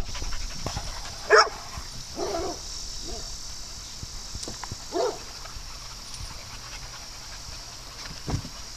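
Dogs at play giving a few short, separate barks: the loudest about a second in, others around two and five seconds in.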